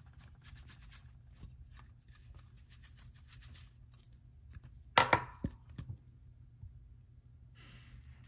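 Hard plastic graded-card slabs being handled: faint small ticks and rubs, then one sharp knock about five seconds in as a slab meets the table, followed by a few lighter clicks and a short soft rustle near the end.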